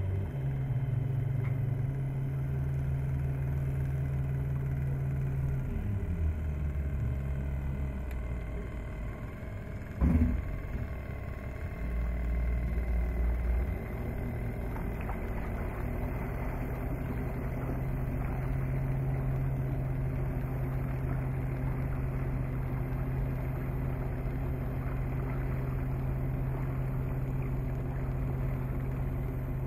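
Electric boat under way: a low, steady motor hum that shifts pitch in steps, over water and wind noise. A single sharp knock about ten seconds in.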